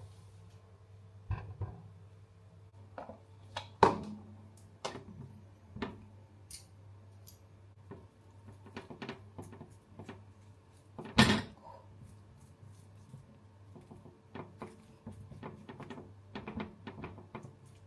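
Kitchen handling sounds: scattered knocks and clinks of dishes and containers being moved and set down, with two louder knocks about 4 and 11 seconds in, over a low steady hum.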